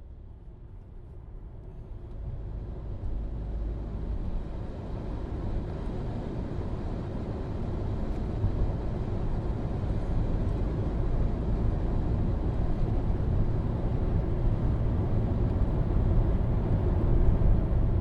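Low, steady rumble of a moving vehicle that fades in over the first few seconds and then holds.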